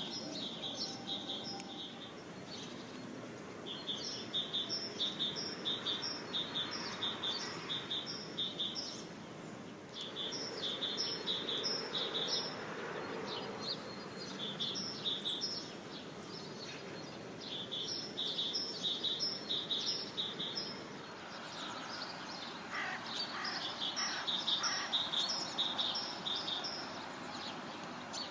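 A songbird singing runs of short, high chirps, about two a second, in phrases several seconds long with short pauses between them, over a steady outdoor hiss.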